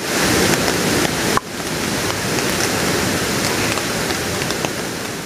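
Steady rain in a forest mixed with rushing stream water, an even hiss with a few faint scattered ticks. The sound changes abruptly and drops a little in level about a second and a half in.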